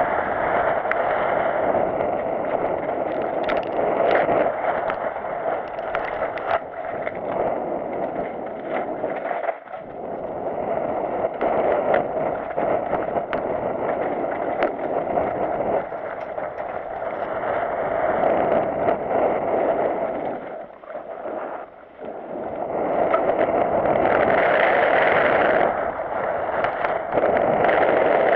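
Mountain bike riding fast down dirt singletrack, recorded on the bike or rider: a steady rumble of tyres on dirt and dry leaves, with wind on the microphone and frequent clicks and rattles of the bike over bumps. Twice the noise drops away briefly, and it grows louder and brighter near the end.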